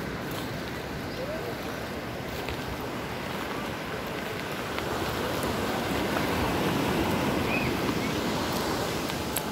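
Ocean surf washing onto the beach: a steady rush that swells louder about halfway through.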